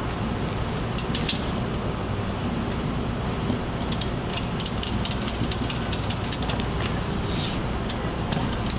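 Steady low rumble of idling vehicle engines. From about four seconds in comes a fast, irregular run of sharp metallic clicks, with a few more about a second in.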